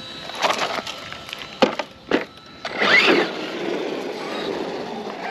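A few sharp knocks and clatters as the Arrma Outcast 4S RC truck is set back on its wheels on the pavement. About three seconds in, its brushless electric motor whines up and the tires run on the asphalt as it drives off, a steady rolling noise under the motor.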